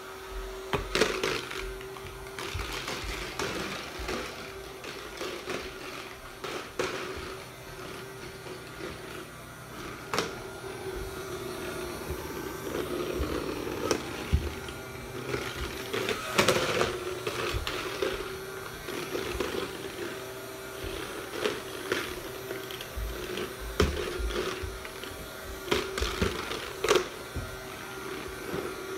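Hover soccer disc toy's battery fan running with a steady hum as the disc glides over the floor, with several sharp knocks as it bumps into things.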